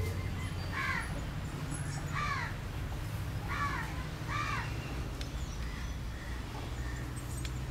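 A crow cawing four times, short harsh caws spread over the first half, over a steady low background hum.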